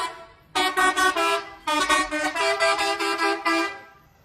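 Bus telolet horn, a multi-note musical horn, playing a stepped tune in two bursts, the first about a second long and the second about two seconds, dying away near the end.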